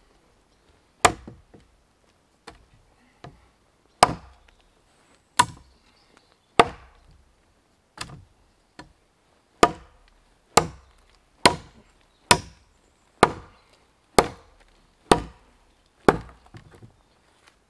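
A Condor Bushcraft Parang chopping into a wooden pole: about sixteen sharp strikes, roughly a second apart and coming a little quicker in the second half.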